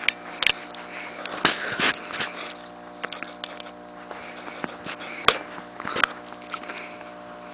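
A cat play-fighting with a person's hand: scuffling and rustling with irregular sharp clicks and taps, over a steady low hum.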